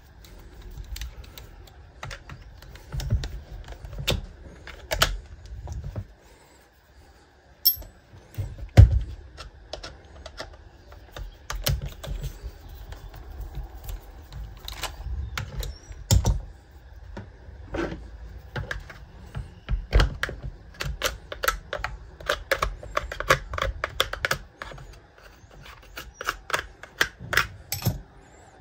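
Screwdriver and chainsaw housing parts clicking and knocking as a cover is unscrewed and worked off the saw's body. The irregular sharp clicks come with a few heavier knocks, and the clicks come quicker over the last several seconds.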